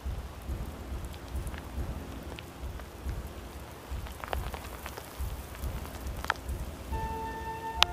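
Soft low thuds of someone walking on the forest floor with the camera, under a steady rustling hiss and a few sharp clicks. Music with held notes comes in about a second before the end.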